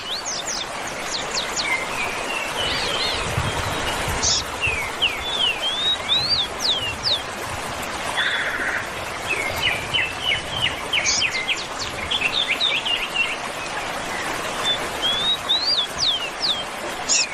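Outdoor birdsong: several birds giving many short chirps and quick whistled upward and downward sweeps, in clusters through the whole stretch, over a steady background hiss.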